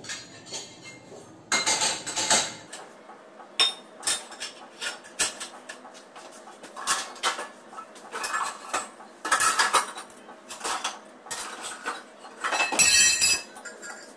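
Steel kitchen dishes and utensils clinking and clattering as they are handled and set down, with a louder burst of clatter near the end.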